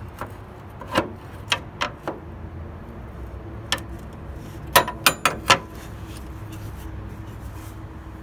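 Scattered sharp metallic clinks from hand tools being handled, about nine in all, with a quick cluster of four about five seconds in.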